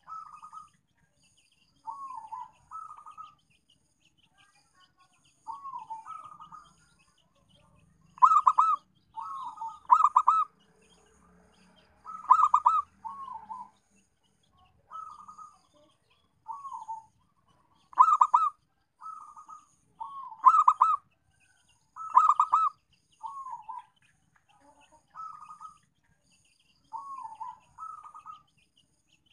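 Zebra dove (perkutut) cooing: short rippling, warbled coo phrases every second or two, with a few much louder phrases through the middle.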